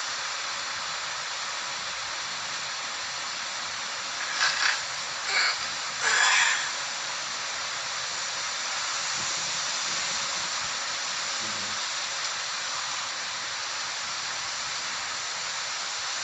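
Steady background hiss, with a few brief faint sounds about four to six and a half seconds in.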